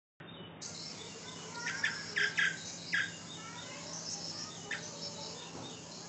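Caged Asian pied starling (jalak suren) giving short, sharp calls: a quick run of five between about one and a half and three seconds in, then one more near five seconds, over a steady hiss.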